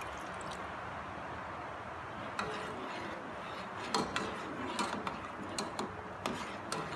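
A ladle stirring a pot of sugar and fish sauce heating on the stove, clinking and knocking against the aluminium pot from about two and a half seconds in, over a steady hiss.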